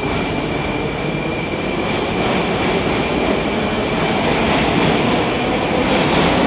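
Metro train running through an underground station: a steady rumble that grows gradually louder, with a thin high whine held through the first half.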